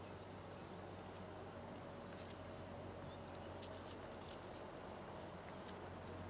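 Quiet garden ambience over a faint low hum: a brief high bird trill about two seconds in, and a few light clicks and scuffs of hand weeding around the middle.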